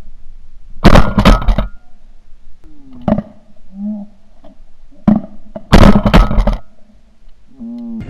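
Two very loud bangs about five seconds apart, each a quick cluster of cracks lasting under a second, with a fainter knock about three seconds in.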